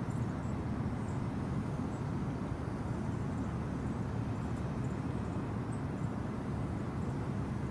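Car engine idling: a steady low rumble.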